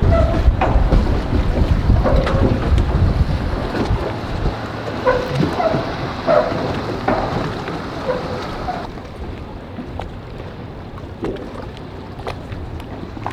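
Strong wind buffeting the microphone, heaviest in the first four seconds and easing later, over the sound of a boat at a boat ramp. A few short, higher sounds come through between about two and nine seconds in.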